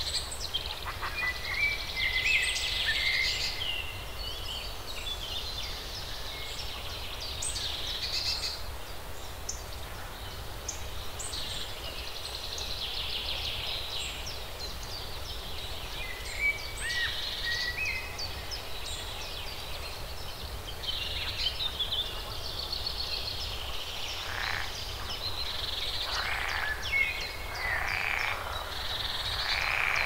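A roosting flock of birds calling all at once: a dense chorus of short, overlapping calls with a few louder ones standing out here and there.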